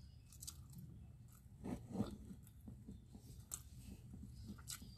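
Faint close-up chewing of a mouthful of rice and fish, with scattered small clicks and one louder mouth sound about two seconds in.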